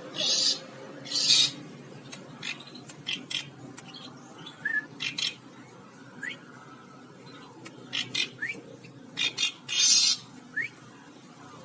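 A pet bird giving harsh, scratchy calls in short bursts, the loudest lasting about half a second, mixed with a few brief rising chirps. These are the agitated calls of a bird described as fierce.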